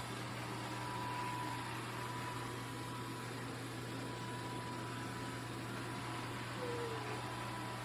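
Robot vacuum running steadily: a low even hum with a thin high whine over a soft rush of air.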